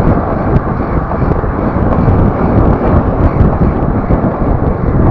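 Steady loud rumble of vehicle and wind noise, with no clear single event.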